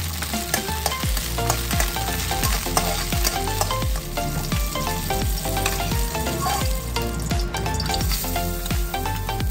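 Petai beans sizzling in hot oil in a stainless steel wok while a metal spatula stirs them. Background music with a steady beat plays under the sizzle.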